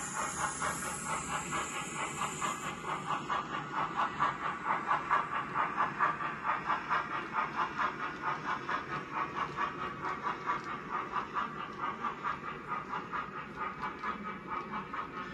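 OO gauge model steam goods train running past, with a steady rhythmic chuffing of about four beats a second and a hiss, typical of a DCC sound-fitted model locomotive. It grows louder for the first few seconds and fades slightly toward the end.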